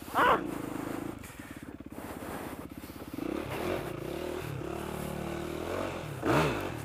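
Dirt bike engine running as it is ridden along a muddy trail, steady at first, then rising and falling in pitch with the throttle. Two brief louder sounds come near the start and near the end.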